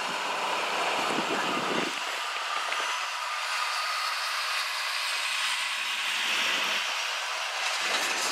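Heavy trucks passing close by at road speed, a Volvo FH followed by a Scania tractor unit pulling a curtainsider trailer: a steady rush of tyre and engine noise that swells slightly as each one goes by.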